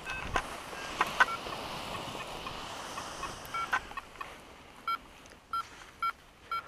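Paragliding variometer giving a string of short electronic beeps, which come closer together toward the end, over a hiss of wind that fades after about four seconds.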